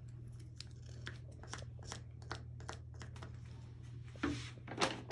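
Plastic feeding syringe drawing up thick guinea pig recovery slurry from a paper cup: a run of small clicks and wet squelches as the plunger is worked, then a few louder scuffing handling noises near the end.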